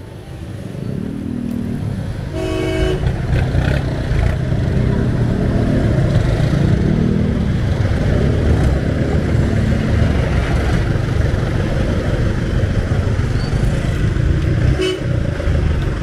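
Dense rush-hour motor traffic at close range: vehicle engines running in a steady low rumble, with a car horn honking briefly about two and a half seconds in and another short beep near the end.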